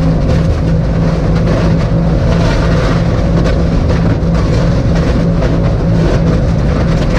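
Airboat engine and propeller running steadily at speed: a strong low hum under a loud rushing noise.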